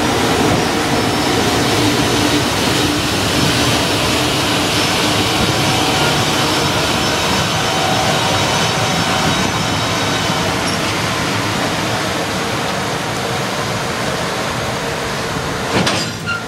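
JR Freight EF210 electric locomotives running at a stop, with a steady blower and inverter hum that holds several steady tones. Near the end, sharp wheel clacks come in as the freight train's flat wagons roll over the rails.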